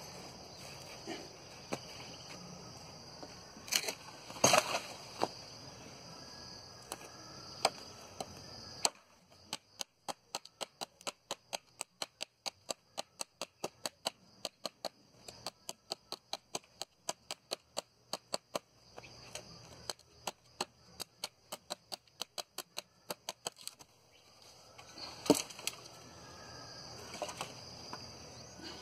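Wood being chopped by hand: a few single blows, then a fast, even run of chopping strikes about two or three a second for some fifteen seconds, ending with one loud blow near the end.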